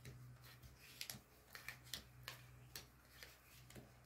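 Oracle cards being dealt from the deck and laid one by one on a card mat: faint, sharp little clicks and taps, about eight at irregular intervals, over a low steady hum.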